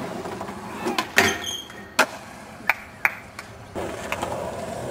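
Skateboard on concrete: several sharp clacks and knocks of the board, the loudest about a second in, then the wheels rolling steadily over the pavement for the last second or so.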